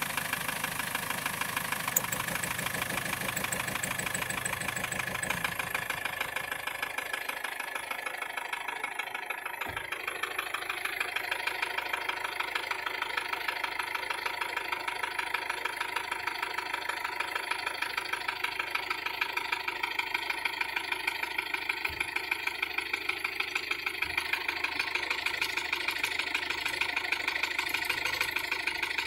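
Car engine idling with a fast, even knock, run with its fuel injectors being disconnected one at a time to find which cylinder the knock comes from. The engine note changes about six seconds in.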